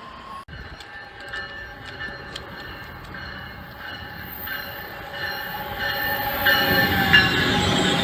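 Commuter train rolling on the rails, its steel wheels squealing in several steady high tones, with scattered clicks, growing louder over the last few seconds as it comes closer.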